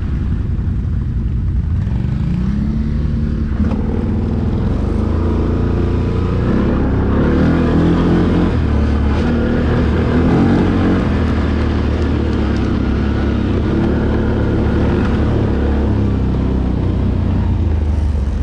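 ATV engine running under way, its pitch climbing about two seconds in, then rising and falling through the middle as the throttle changes.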